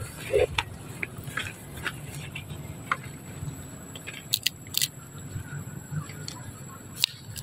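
Long-tailed macaque cracking open peanut shells and chewing the nuts: scattered small sharp cracks and crunches, with a few crisp snaps around the middle and one near the end.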